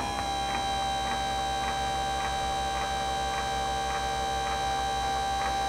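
Electric motor drive folding down a pair of roof-mounted bull horns: it switches on with a click, then hums steadily on one note, with a light tick about three times a second.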